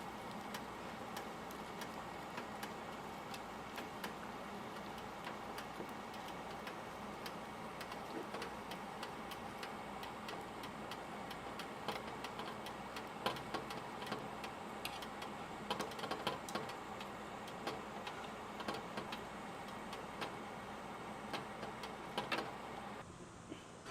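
Eel grilling, with steady sizzling and many irregular sharp crackles and pops; it stops abruptly near the end.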